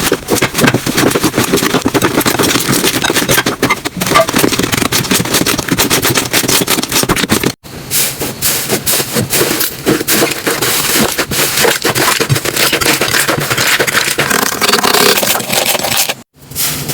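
Slime being squeezed and kneaded by hand: a dense, continuous run of wet crackles, pops and clicks. It breaks off briefly about seven and a half seconds in and again near the end.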